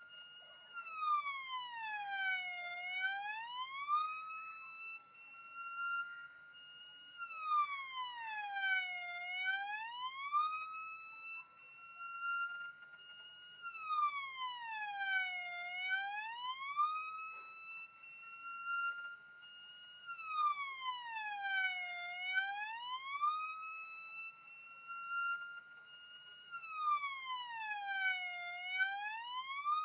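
Fire engine siren sound effect wailing in a slow, even cycle: it holds a high pitch for a few seconds, then swoops down and back up, about once every six and a half seconds.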